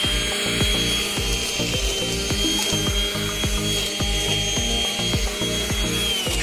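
Ozito LTR-529 500 W electric line trimmer running with a steady high whine as it cuts grass, over background music with a steady beat.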